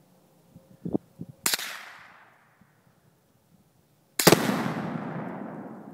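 A single gunshot, then a few seconds later a much louder blast from Tannerite exploding targets detonating, with a long rolling echo that fades slowly.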